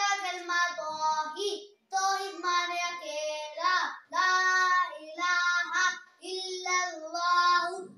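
A young boy chanting an Arabic Islamic recitation in a melodic, sing-song voice: held notes in short phrases with brief breaths between them.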